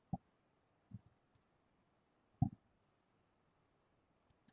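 A handful of faint, short clicks at irregular intervals over a quiet background, the loudest about two and a half seconds in.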